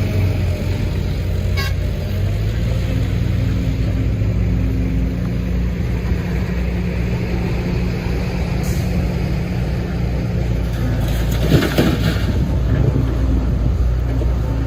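Heavy diesel engine of construction machinery running steadily with a low drone. About three-quarters of the way through there is a short burst of clattering knocks.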